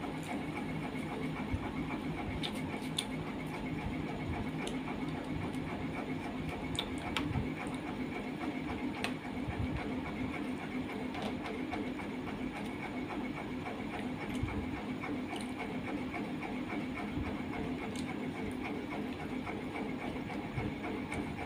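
Close-up eating sounds: scattered chewing and mouth clicks as rice and curry are eaten by hand, over a steady machine hum.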